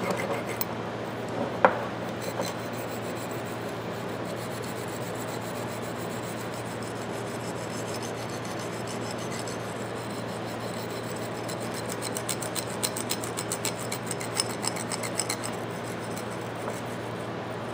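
Small twisted-wire brass brush scrubbing back and forth in the grooves of old steel Eagle Claw slip-joint pliers, a steady scratchy rubbing. There is a sharp click about a second and a half in, and a run of quicker strokes about two-thirds of the way through.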